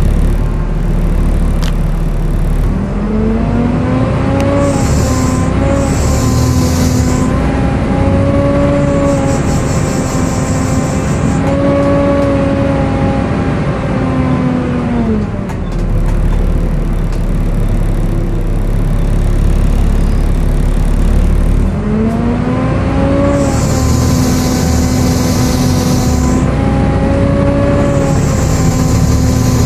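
Volvo B7TL double-decker bus's engine with its loud, screechy 'hoover' cooling-fan whine. The whine climbs in pitch as the bus pulls away about three seconds in, then holds. It drops back to idle around halfway and climbs again as the bus pulls off a second time.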